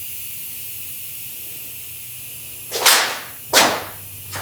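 A steady faint hiss, then two short sharp whooshes about three and three and a half seconds in.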